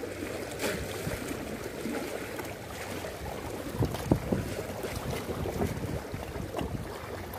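Small sea waves lapping and washing against the rocks of a seawall, with wind on the microphone. A few short sharper knocks stand out, the loudest about four seconds in.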